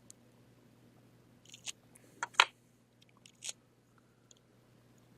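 A few short, sharp clicks and crackles as small parts are handled on the bench, the loudest about two and a half seconds in, over a faint steady hum.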